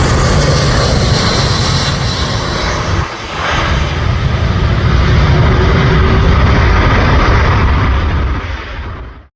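Loud, close jet noise from an Airbus A330-200 airliner's engines as it comes in to land, with a steady whine over the rumble. The noise dips briefly about three seconds in, then fades out and cuts off near the end.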